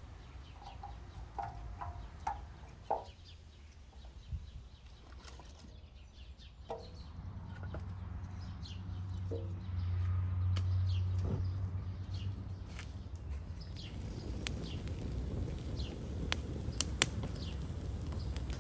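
Split firewood knocking as it is stacked on a metal plate, then the wood fire catching, with a low rumble that swells about halfway and sharp crackles and pops that grow toward the end. Chickens cluck in the background.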